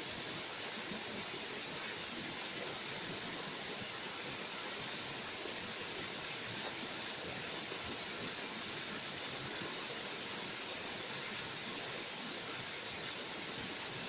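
Small waterfall spilling down a rock face: a steady, even rush of falling water with a bright hiss.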